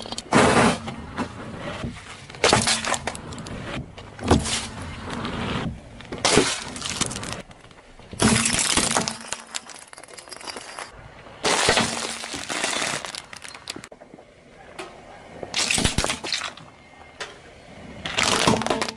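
A car tyre rolling over small plastic objects and toys and crushing them. It comes as a string of separate crunching, cracking bursts, one every couple of seconds, each under a second or so.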